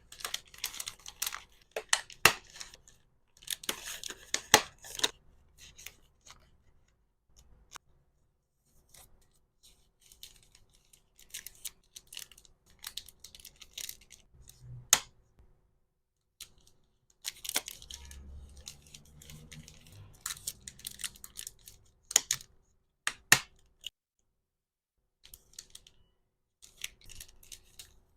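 Hand packing of small accessories: bursts of crisp snipping, crinkling and tearing of packaging material, punctuated by sharp clicks, with short silent gaps between them.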